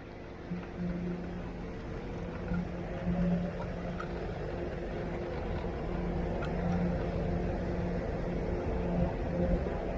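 A motor scooter running while it is ridden: a steady motor hum with road and wind rumble underneath.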